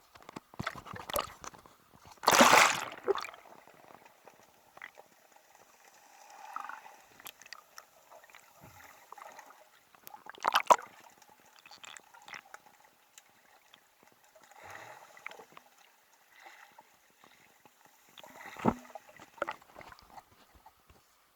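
Sea water sloshing and gurgling, with scattered splashes; the loudest splash comes about two and a half seconds in, and others come near the middle and near the end.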